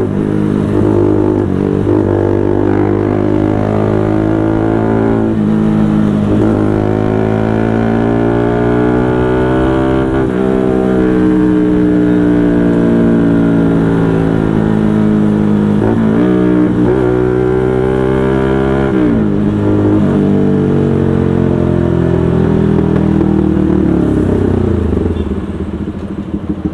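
Bajaj 200 cc single-cylinder engine of an AS200 converted to NS200, through a loud aftermarket SC Project-style full-system exhaust, pulling through the gears. The pitch climbs, drops at each shift and climbs again several times. Near the end the note sinks and eases off as the bike slows.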